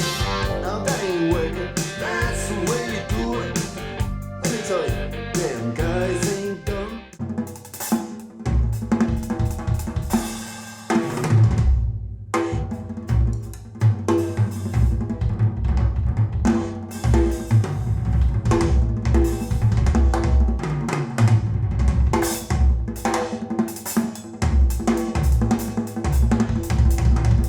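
Recorded music played back through Elfton Elevator hi-fi loudspeakers and picked up in the room. About eleven seconds in, after a short dip, a drum kit and deep bass come in strongly.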